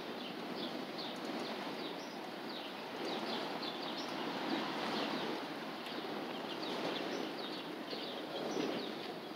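Freight train of autorack cars rolling past close by: a steady rumble and clatter of steel wheels on the rails, with short high squeaks repeating throughout.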